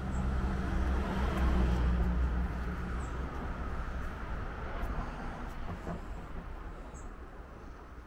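A motor vehicle going past: a low engine hum with tyre noise, loudest about a second and a half in and then slowly fading away.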